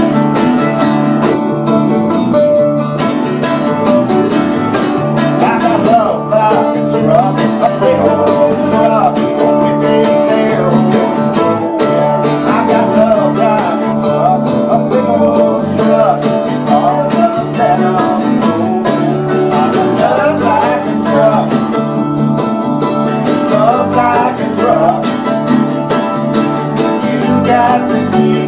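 Acoustic band playing a song: strummed archtop guitar, mandolin, tambourine and acoustic bass guitar, with a man singing lead. Everything but the bass, which runs through a small amp, is played unamplified in the room.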